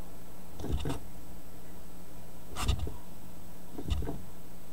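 Homemade magnet motor built around a fidget spinner, its metal rod lever being worked by hand against the wooden board: three short, irregularly spaced knocks with a little clatter, over a steady low hum.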